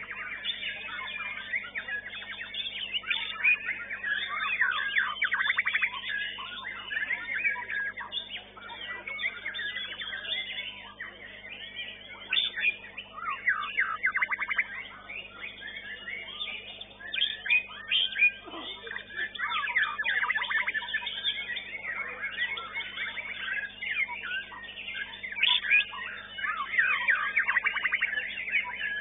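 White-rumped shama (murai batu) singing in bouts of rapid, varied phrases full of quick pitch slides, with short pauses between bouts.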